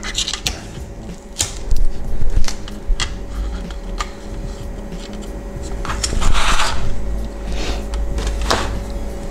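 Protective film being peeled off a new replacement LCD and the plastic parts of a car instrument cluster being handled: light clicks and taps, with a short crackling rustle about six seconds in.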